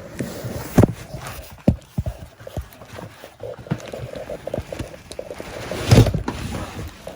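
Handling noise from a sealed subwoofer enclosure being moved and turned over: irregular knocks and thumps with rustling in between, the loudest thump about six seconds in.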